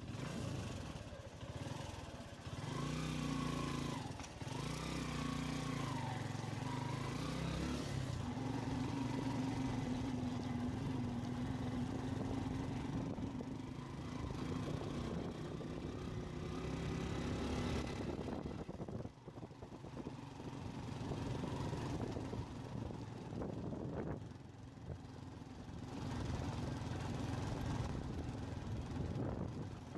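Motorcycle engine running under way on a dirt road, its pitch shifting up and down with the throttle, easing off briefly twice in the second half.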